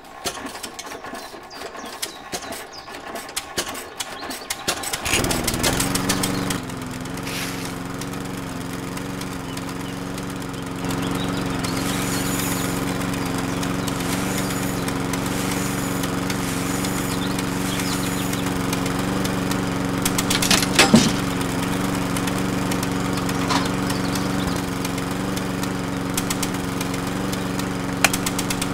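Toy engine being started: several seconds of irregular clicking, then it catches and runs steadily, turning a little louder about eleven seconds in, with one sharp clack about twenty seconds in.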